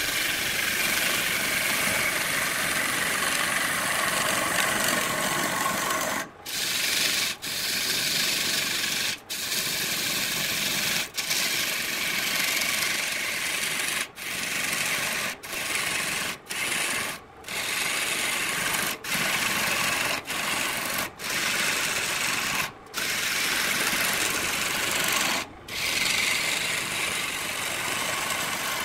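A turning tool cutting into a wooden vase blank spinning on a wood lathe: a continuous scraping hiss as shavings are peeled off, broken by about a dozen short breaks in the cutting.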